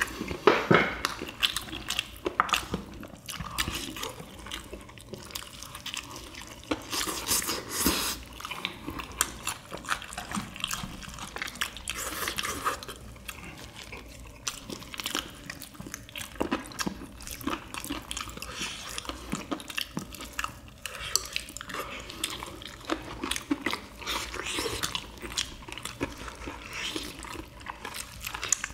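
Eating samgyetang: chewing and slurping of chicken and broth, with many irregular short clicks.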